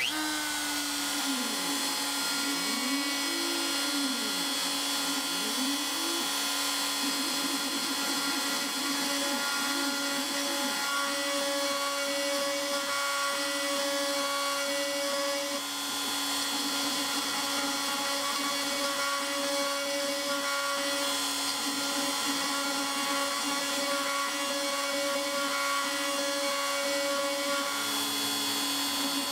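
Milling spindle running steadily with an end mill cutting a pocket into the end of a 7/8-inch aluminum rod, a steady whine over the cutting noise. In the first several seconds the cutting tone swoops up and down a few times as the tool moves through the metal.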